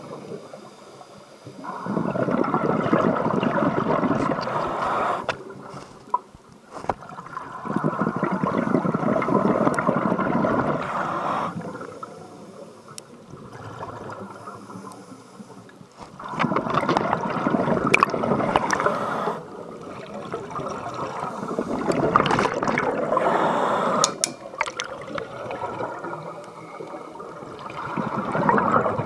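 Scuba diver's exhaled air bubbling out of the regulator underwater in repeated bursts of two to four seconds, about four breaths out, with quieter gaps between them as the diver breathes in.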